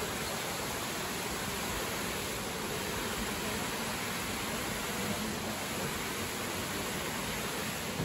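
Steady even rush of water from small waterfall cascades spilling over rock ledges into a pool.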